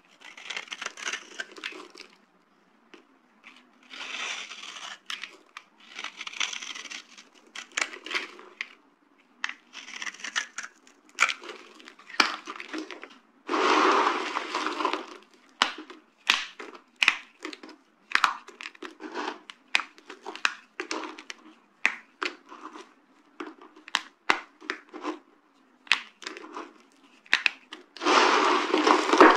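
Dry soap being crushed and broken: a run of short, sharp cracks and crunches, with longer stretches of crumbling crunch about halfway through and again near the end.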